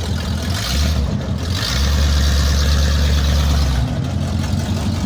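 Buick Riviera engine running open through long-tube headers with no mufflers fitted. It idles, is blipped briefly about a second in, then is revved for about two seconds before settling back to idle.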